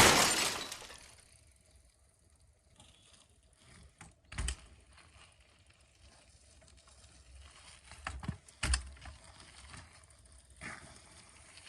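A loud rush fades out in the first second. After that it is mostly quiet, broken by a few short knocks and clattering rattles: one about four seconds in, several around eight to nine seconds, and one more near the end.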